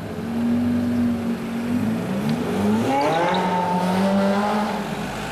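Porsche 918 Spyder's 4.6-litre V8 pulling away hard. The engine note holds steady for about two seconds, climbs for about a second and a half, then drops back to a lower held note that fades as the car moves off.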